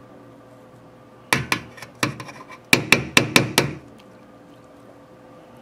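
A metal spoon knocking and clinking against the bowls while scooping ice cream: about ten sharp taps in two quick runs, between about one and four seconds in.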